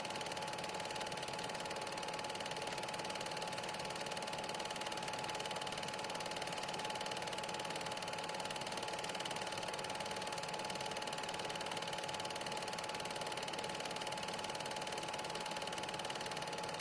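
Steady mechanical whir with a constant tone, unchanging throughout, typical of a Super 8 film projector running while the silent film is transferred.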